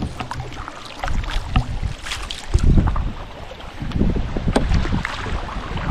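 Canoe out on a lake: water splashing and dripping from the paddle against the hull, with wind gusting over the microphone in low rumbling swells about one, two and a half and four seconds in.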